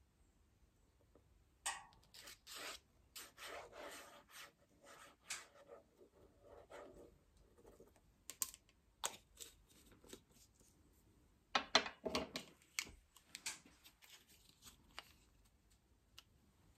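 Paintbrush scrubbing and stroking over sketchbook paper: a run of short, irregular scratchy strokes in two spells, starting about two seconds in, with a pause around the middle.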